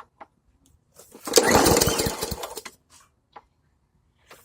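Briggs & Stratton lawn mower engine being pull-started: about a second in, the cord is pulled and the engine sputters for about a second and a half, then dies without catching. The owner puts the failure down to too little fuel in the tank.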